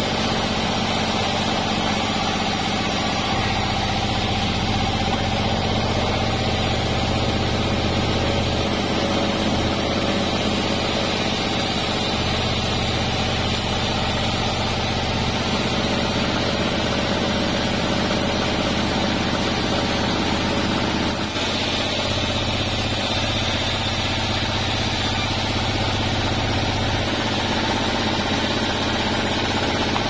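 Large band sawmill running with a steady mechanical drone while sawing cananga (ylang-ylang) logs into beams. The level dips briefly about two-thirds of the way in.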